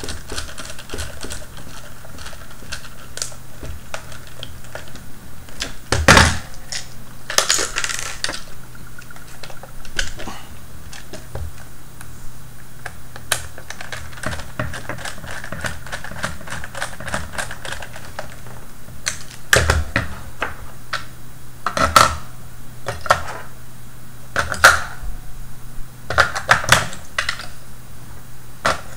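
A small precision screwdriver driving screws into the plastic shell of a Scribbler 2 robot: a run of small ticks and scrapes, with several louder sharp knocks as the plastic robot is handled on the wooden table.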